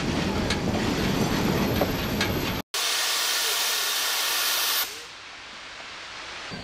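Rumble and clickety-clack of riding in an open coach behind a steam train. After a cut, a Shay geared steam locomotive's safety valve blows off with a loud, steady hiss that stops abruptly about two seconds later.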